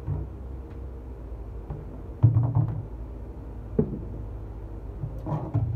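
Hollow knocks and thumps of an empty plastic 15-gallon barrel being tipped and moved about by hand, the loudest a little over two seconds in, with smaller bumps near four seconds and near the end.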